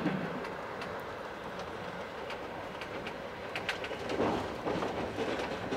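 Train running along the track: a steady rumble of wheels on rails with irregular clicks, growing a little louder about four seconds in.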